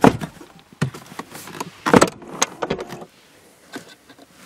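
Knocks, thumps and clicks from someone handling the trim and moving about inside a car's rear cabin. The loudest knocks come at the very start and about two seconds in, followed by a few smaller clicks and then quiet.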